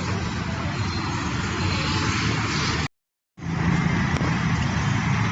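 Steady running rumble and hiss of a moving vehicle. It cuts out to complete silence for about half a second near the middle, then resumes unchanged.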